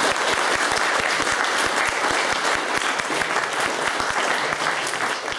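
Audience applauding: many people clapping steadily, fading out near the end.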